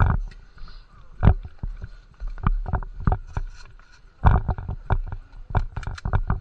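Irregular knocks and thumps close to the microphone, a few to the second and some much louder than others, over a faint steady hum: handling and movement noise on a body-worn camera.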